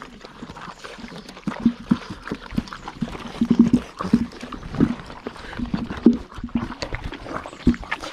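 Several English Setter puppies eating kibble from a stainless steel feeding pan: dense, irregular chewing and slurping, with kibble clicking against the metal.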